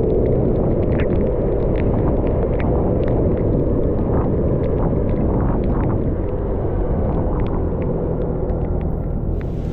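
Steady rumble of wind and a 50 cc scooter (an Aprilia SXR50) while riding, with many scattered light ticks. Near the end the sound turns brighter and hissier.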